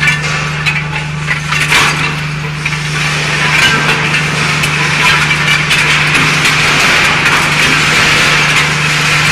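Twin-shaft scrap metal shredder running under load, a steady low hum from its drive beneath repeated cracking and clattering as the cutter discs tear into scrap metal. A harsher grinding noise builds from about three seconds in and stays.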